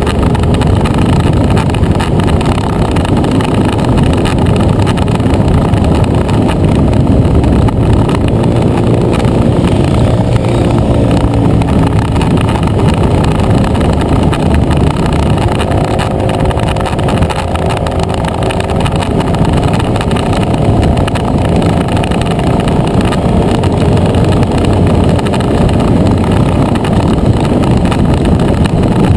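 Motor scooter engine running at road speed, with heavy wind rush over the microphone; the engine note rises and falls at times through the bends.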